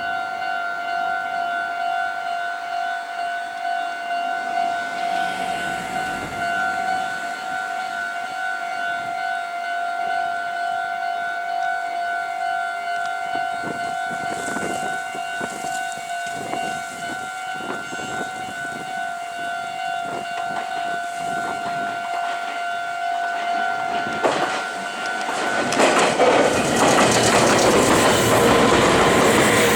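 Japanese level-crossing warning bell ringing steadily with a two-note electronic tone, with rail clicks growing as the train nears. About 25 seconds in the bell gives way to a Meitetsu 3500 series electric train passing over the crossing, loud with wheel clatter on the rail joints.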